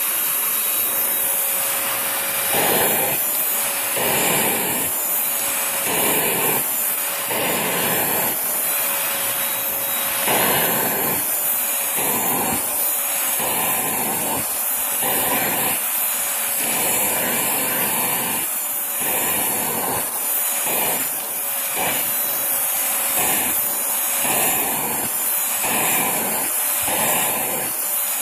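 Vacuum cleaner running with its hose nozzle drawn over a cat's fur for grooming: a steady suction hiss that swells and changes with each stroke, about once a second.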